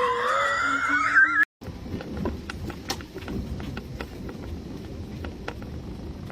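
A cat's long, drawn-out yowl that rises and wavers in pitch, cut off abruptly about a second and a half in; after it come scattered light clicks and taps over background noise.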